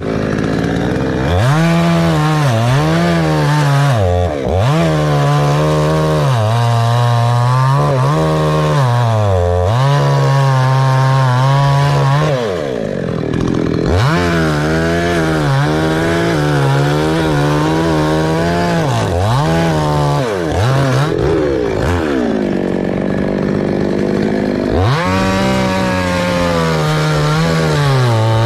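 Chainsaw running at full throttle while cutting a tree, its pitch dipping again and again as the chain bites into the wood. Twice, about halfway through and again about three-quarters of the way through, it falls back to a lower pitch before revving up again.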